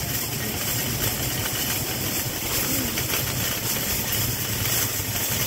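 Car engine running and tyres rolling on asphalt, heard from inside the moving car: a steady low hum with road noise.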